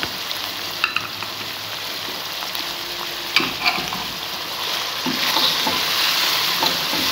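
Chicken and peas frying in ghee in an aluminium pan, sizzling steadily while a slotted spatula stirs and scrapes them. There are a few clicks of the spatula against the pan about a second in and again around three and a half seconds. The sizzle and stirring grow louder in the last couple of seconds.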